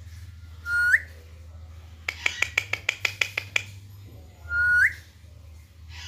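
Two short loud whistles, each holding one note and then sweeping upward, about four seconds apart. Between them comes a quick even run of about ten sharp clicks.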